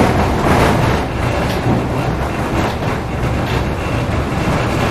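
Tram running along its rails, heard from inside the car: steady noise of the wheels on the track with a low electric motor hum.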